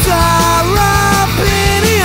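Punk rock song with a full band, steady drum hits and a melody of held notes that slide from one pitch to the next.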